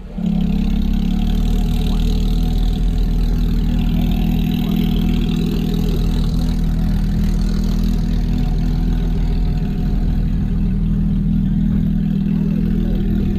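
A car engine idling steadily and evenly, with no revving.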